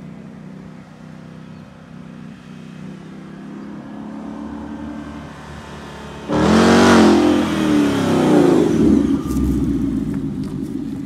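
2020 Ford Mustang GT's 5.0-litre V8 through a Pypes aftermarket exhaust, running as the car drives toward the listener and grows louder. About six seconds in it accelerates hard with a sudden loud revving, then passes close by and settles to a lower, steady rumble.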